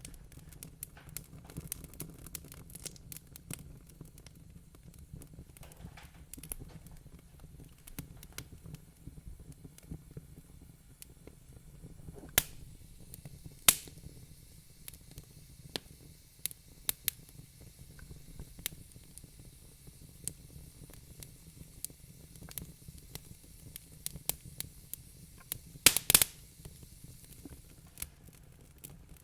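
Real wood-burning fire crackling, with irregular small pops over a steady low rumble. A few louder pops stand out midway, and a quick run of loud pops comes near the end.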